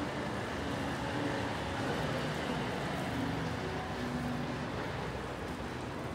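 Steady background hubbub of a busy pedestrian shopping street, with indistinct voices of passers-by.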